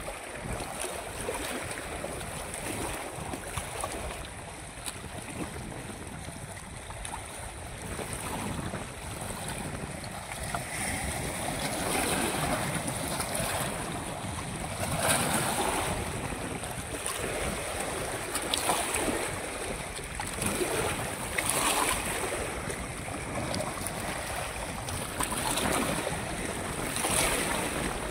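Wind buffeting the microphone over small waves lapping on a rocky lakeshore, with the wind noise growing louder and gustier in the second half.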